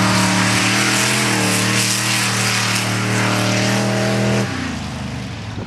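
Off-road drag trucks racing at full throttle down a sand strip, engines held at a steady high pitch with a hiss of spinning tyres and thrown sand. The engines let off sharply about four and a half seconds in, at the end of the 200 ft run.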